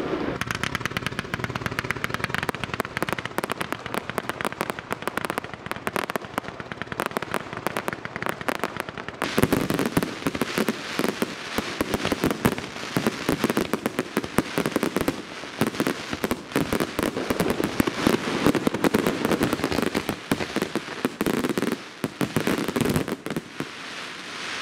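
Aerial firework display: a dense, rapid crackle of many small bangs and pops. It grows heavier and louder about nine seconds in and eases off shortly before the end.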